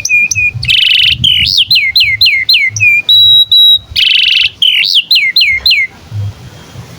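Domestic canary singing a long, varied song: fast rolling trills, a run of down-slurred notes at about three a second, and two held whistles. The song stops about six seconds in.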